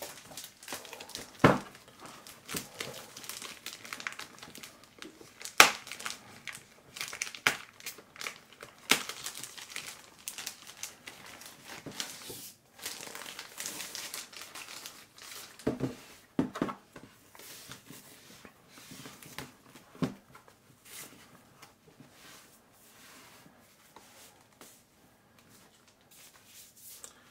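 Plastic packaging crinkling and rustling as a laptop is unwrapped from its bag and sleeve, with sharp crackles, the loudest about one and a half, five and a half and nine seconds in, and a few duller knocks around sixteen seconds. The rustling gets quieter over the last several seconds.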